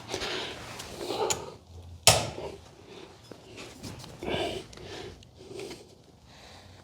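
A sharp clack about two seconds in, among softer knocks and shuffling: the caster wheel locks on a steel auto body restoration cart being pressed into the locked position.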